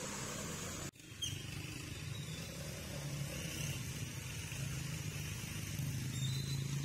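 Street traffic noise that cuts off about a second in. A quieter outdoor ambience follows, with a steady low engine hum and a few faint, brief high chirps.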